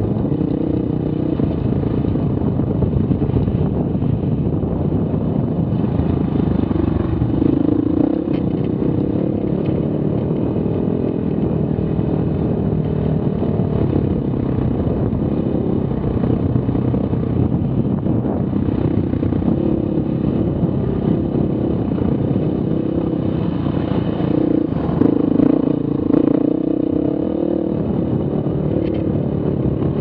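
Dirt bike engine running at a steady trail-riding pace, rising in pitch and level briefly about a quarter of the way in and again for a few seconds near the end.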